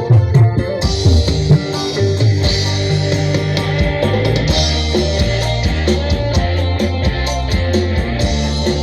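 Band music played loud through a large PA sound system: guitar, deep bass and drum kit with a steady beat, the cymbals coming in about a second in.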